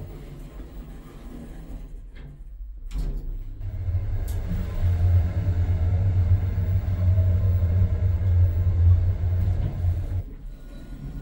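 Lutz passenger elevator riding between floors. The doors close with a couple of knocks in the first three seconds, then the cab travels with a loud, steady low hum for about six seconds, which stops just before the doors open near the end.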